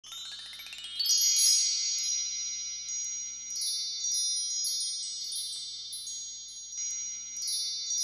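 Wind chimes ringing: a quick sweep of rising metallic notes in the first second, then high tones struck again at uneven intervals, each left to ring on.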